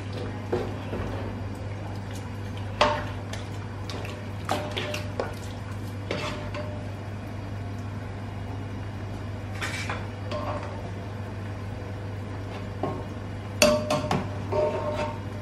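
A spoon stirring mutton and masala in a large metal pot, knocking and scraping against the pot every second or two, with a quick run of knocks near the end. A steady low hum underneath.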